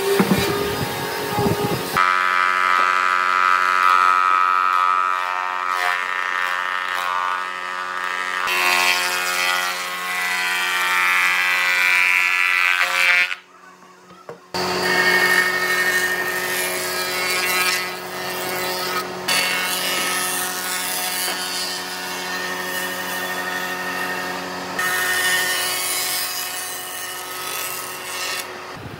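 Woodworking power tools running, among them a wood planer cutting boards, heard as a steady machine whine with shifting pitch. The sound drops out briefly about halfway through.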